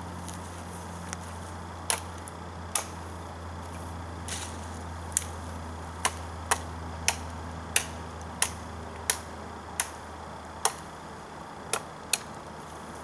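Blade chopping side branches off a long wooden sapling pole: sharp woody knocks, two near two seconds in, then a steady run of strokes a little over half a second apart from about five seconds on. A low steady hum lies underneath.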